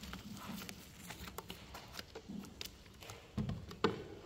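Light, scattered clicks and taps of a small paint roller working resin into fibreglass mat, with two louder knocks near the end as the roller is brought to the plastic resin bucket.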